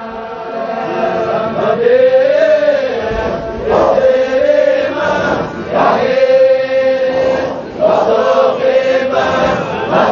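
Group of men chanting a Qadiriya Sufi dhikr in unison: a held note on one pitch, with a stressed syllable about every two seconds.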